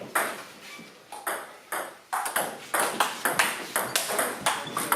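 Table tennis ball clicking off bats and table in a rally: a few spaced clicks at first, then a quick back-and-forth of about three clicks a second from about two seconds in.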